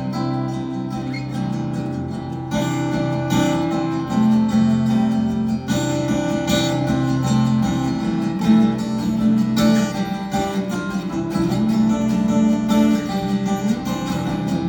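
Acoustic guitar strummed in an instrumental passage with no singing, chords re-struck every second or two and left to ring.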